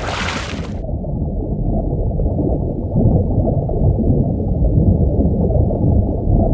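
A short hissing whoosh at the very start, then a muffled, steady low rumble of water with nothing in the upper pitches, like sound heard through a sealed diving-camera housing.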